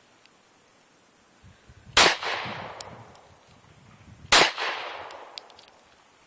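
Two pistol shots about two and a half seconds apart, each echoing off briefly, with light metallic pings after each shot.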